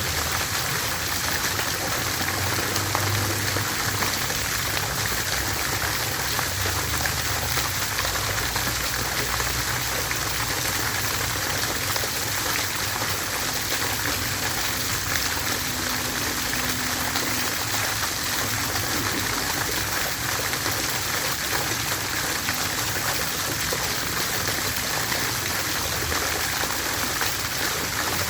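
Water fountain running, with steady splashing of falling water.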